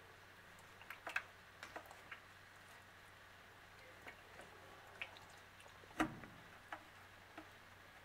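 Scattered small clicks, taps and little water sounds from hatchling common snapping turtles moving and feeding on earthworms in a shallow plastic tub, with one louder knock about six seconds in.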